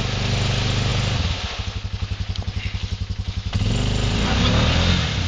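Quad (ATV) engine wading through a deep mud bog. It is revved for the first second or so, drops to a lumpy idle, then is revved again for about a second and a half near the end before falling back.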